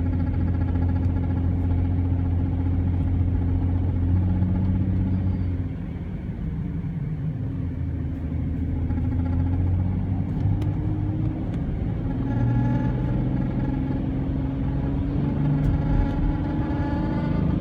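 2014 BMW X3 engine and drivetrain running under load while driving, a steady drone that dips about six seconds in and then climbs again. Faint short clicks are scattered through it: the intermittent chirp this car makes on cold starts under load, which the dealer put down to a loose speaker.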